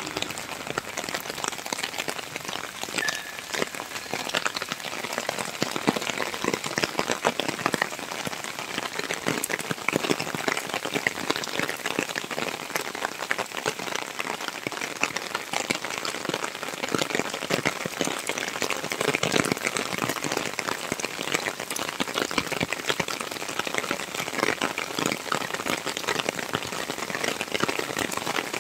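Steady rain falling on water-covered paving, a dense patter of drops hitting the puddled surface.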